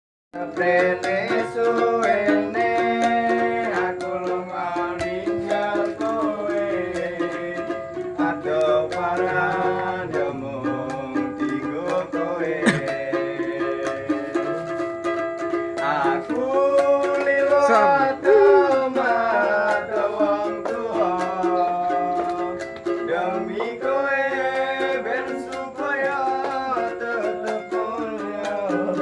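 Ukulele strummed in a steady rhythm, with men singing a melody along with it.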